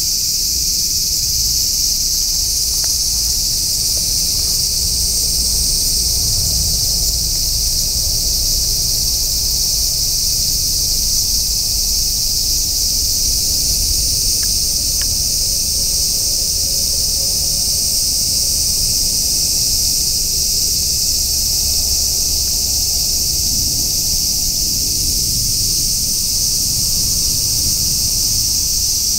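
Steady, high-pitched insect chorus, with a faint low rumble underneath.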